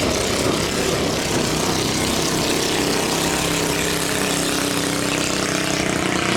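Racing long-tail boat engine running steadily, its pitch shifting a little.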